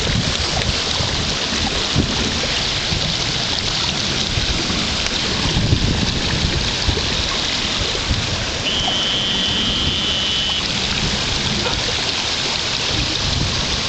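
Muddy stormwater runoff rushing through a flooded yard in a steady, loud rush, with wind gusting on the microphone.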